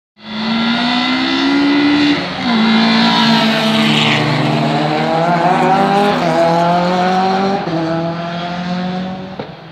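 Several rallycross cars racing past, their engines revving hard. The engine pitch drops sharply twice, at gear shifts, and the sound fades near the end.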